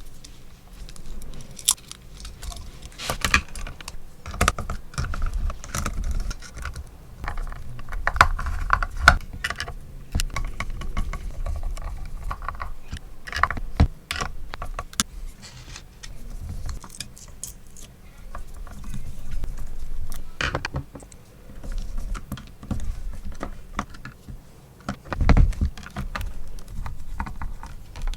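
Irregular clicks, knocks and small metallic jangles from guitar parts and hardware being handled, with a louder knock near the end.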